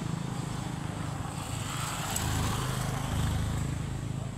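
A motor vehicle engine running steadily at low speed.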